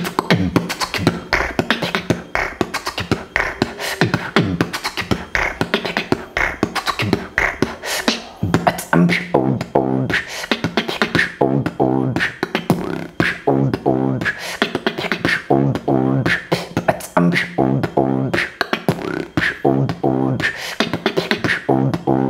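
Solo beatboxing: a fast, dense run of sharp percussive mouth sounds, joined from about eight seconds in by low pitched vocal bass tones sounded between the beats.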